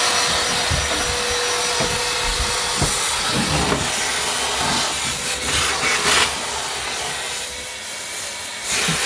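Vacuum cleaner running steadily, its nozzle sucking the plastic shavings left from drilling the holes out of the bottom of a plastic cold water storage cistern. There are irregular knocks as the nozzle moves over the tank.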